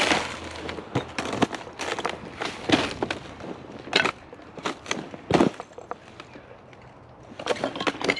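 Footsteps crunching and rustling at an irregular pace, with a short lull about six seconds in.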